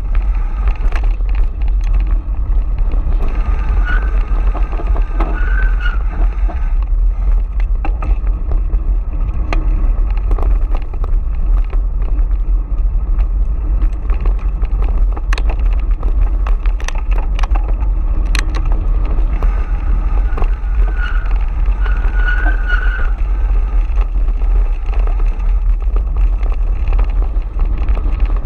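Wind buffeting the microphone of a camera on a mountain bike riding a gravel trail, over the rumble of tyres rolling on loose stones, with sharp clicks and knocks as the bike rattles over rocks.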